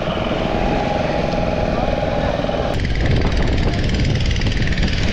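Motorboat engine running steadily on open water, with wind and water rush. About three seconds in the sound changes abruptly to a noisier rush of wind and water.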